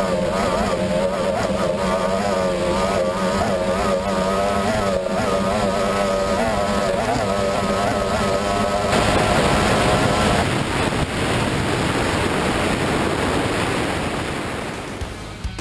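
Racing outboard engine on an offshore powerboat running at high speed, its note wavering up and down, over the hiss of spray and rushing water. About nine seconds in, the engine tone fades under a broad rush of water and wind noise.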